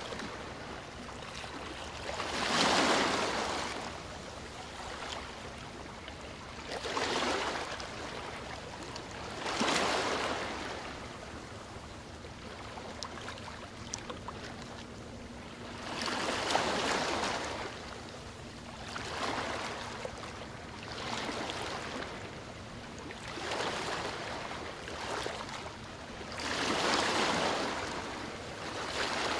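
Small river waves washing up on a sandy beach: an irregular swell of rushing water every two to three seconds, each rising and falling away over a steady hiss.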